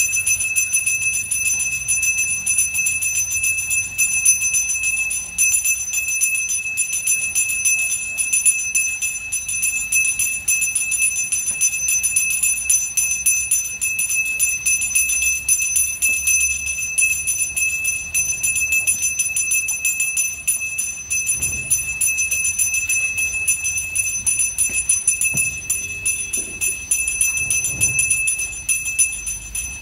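Brass puja bell rung rapidly and continuously, its high ringing tones held without a break.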